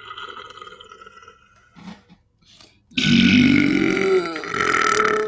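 A person's long, loud belch, starting about three seconds in and lasting about two seconds, its pitch rising as it goes. Softer sounds come before it in the first second and a half.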